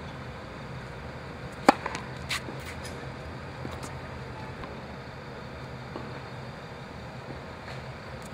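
A tennis ball struck hard by a racquet once, a sharp crack under two seconds in, followed by a couple of fainter knocks of the ball; a steady low hum lies underneath.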